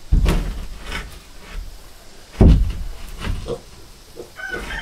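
Wooden board knocked and shifted against the shed's wall studs while being fitted: two heavy thumps, one right at the start and one about halfway through, with lighter knocks between. A steady pitched hum starts near the end.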